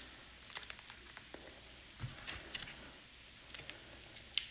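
Faint handling sounds of trading cards and plastic card holders: scattered light clicks and rustles.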